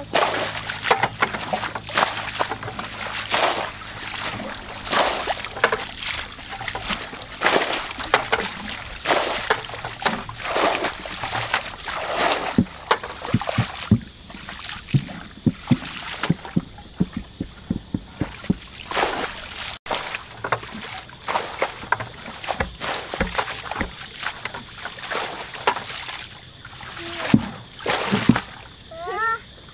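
Repeated splashing and sloshing of muddy water as it is scooped up and thrown out of a shallow paddy puddle with a plastic drum. The strokes come at an irregular pace, over a steady high-pitched hiss that stops abruptly about two-thirds through.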